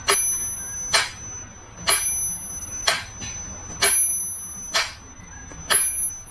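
A high, steady electronic tone sounds for just under a second, with a sharp click where it starts and another where it stops. The pattern repeats about every two seconds, three times over.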